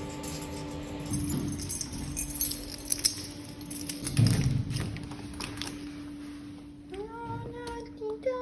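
A cat meowing near the end, over a steady background tone with scattered clicks and jangling rattles.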